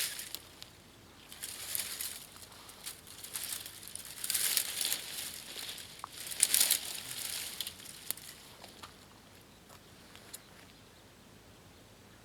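Crinkling and rustling of dry material being handled, in three main bursts over the first seven or so seconds, the loudest about six and a half seconds in.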